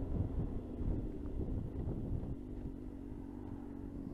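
Suzuki GSX-R sports bike on the move, with wind rush on the helmet microphone, easing off and slowing. About two seconds in the wind noise drops away, leaving a steady, quieter engine note.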